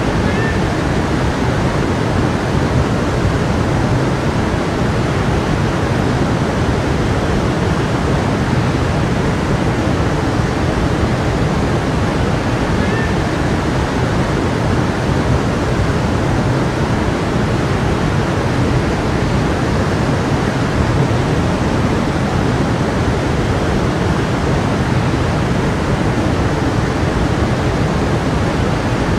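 A stream's water running steadily, an even rush of flowing water with no change in level. Two faint short chirps sound over it, once near the start and once about 13 seconds in.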